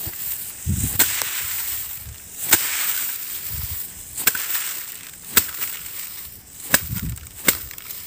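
Ripe rice (paddy) stalks being cut by hand near the ground, a sharp crisp snap at each cut, about once a second and irregular, with soft handling thuds between them.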